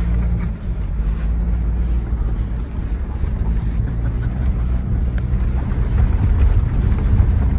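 A 2021 Ford Bronco First Edition driving steadily through snow in four-wheel drive, heard from inside the cab: a continuous low rumble of the engine and drivetrain.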